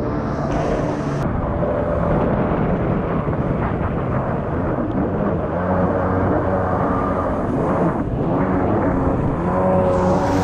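1989 Kawasaki 650 SX stand-up jet ski's two-stroke twin running hard under way, its pitch rising and falling several times, over the rush of water and spray.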